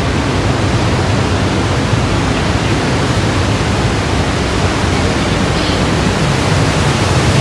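Steady rushing noise of Niagara's Horseshoe Falls, heard from the tunnels behind the falls: loud, even and unbroken.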